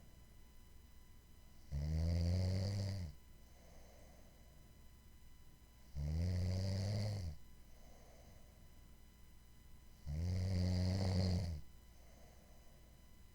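A sleeper snoring: three loud snores about four seconds apart, each lasting a little over a second, with a faint breath between them.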